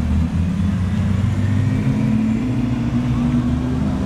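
A car engine running with a deep rumble as the car drives off, its pitch rising a little through the middle and easing near the end.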